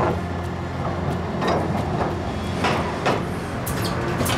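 Heavy diesel machinery running steadily under load, with several sharp metallic knocks spread irregularly through it, as excavators take the strain on wire-rope lines to a tipped articulated rock truck.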